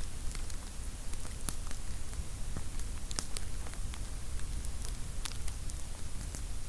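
Wood campfire crackling: irregular sharp pops and snaps of burning firewood, a couple a second, over a low steady rumble.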